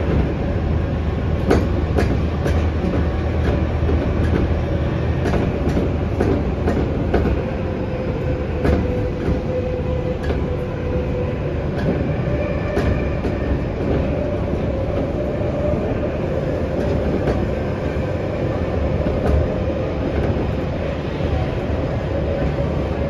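Yokohama Minatomirai Railway Y500 series electric train heard from inside the car while running through a subway tunnel. A steady running noise carries a faint humming tone from its Hitachi IGBT inverter-driven traction motors, and wheel clicks over rail joints come in small groups.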